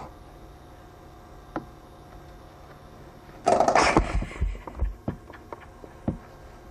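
Coiled-spring door stop flicked by an animal: a loud rattling twang lasting about half a second, about three and a half seconds in, followed by several fainter clicks.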